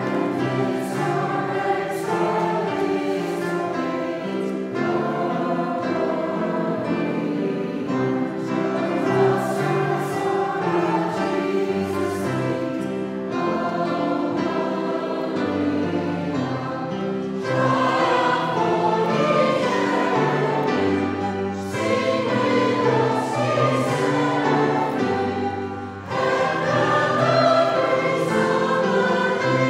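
A church congregation singing a hymn together, with long held notes and a brief break between lines about 26 seconds in.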